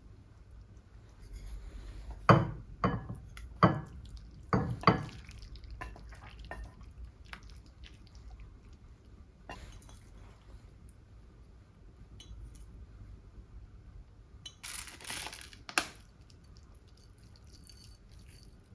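Clinks of utensils against a ceramic bowl while a bowl of ramen is assembled: about five sharp strikes close together in the first few seconds, then lighter taps. Near the end comes a short rustling burst that ends in one more clink.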